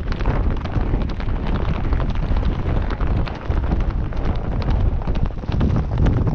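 Wind rumbling on the microphone of a camera mounted on a galloping horse, mixed with a dense, irregular clatter of hoofbeats on a dirt track.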